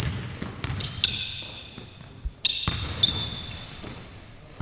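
Basketballs striking the metal rim and bouncing on a hardwood gym floor. Three sharp hits, about a second, two and a half and three seconds in, each ringing and echoing in the gym.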